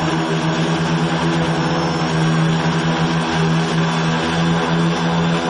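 Quadcopter's electric motors and propellers buzzing steadily in flight, heard close up from a camera mounted on the frame, with a rushing of air behind the buzz. The pitch wavers slightly with the throttle.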